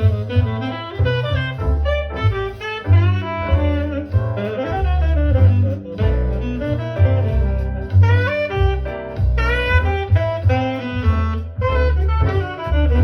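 Jazz track with a saxophone lead over bass notes, played through a Technics SC-C70 MK2 compact hi-fi system and recorded by a microphone in the room.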